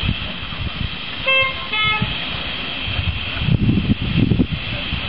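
Two short toots on a miniature live-steam locomotive's whistle about a second and a half in, over a steady hiss and the low rumble of the train moving off, which grows louder near the end.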